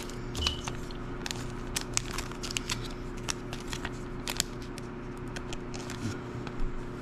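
Thin clear plastic card sleeve crinkling and crackling in the hands as a trading card is slid into it, a scatter of small irregular crackles.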